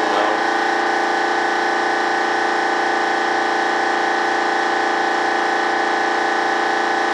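Air-supply motor for a spray gun, used to spray PVA mould release, running at one steady pitch with a hum and a hiss. It is switched off right at the end.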